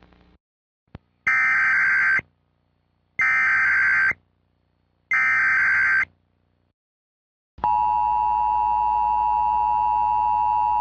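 Emergency Alert System tones from a Gorman-Redlich CG-1000 EAS encoder: three short bursts of the screeching SAME data header, about two seconds apart, then the steady two-tone attention signal starting about three-quarters of the way in and holding.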